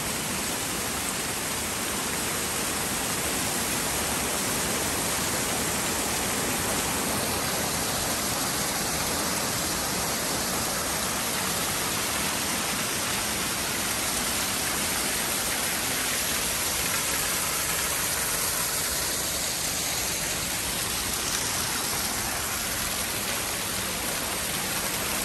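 Steady rush and splash of water pouring down a concrete slide chute and cascading over stone-wall waterfalls into a pool.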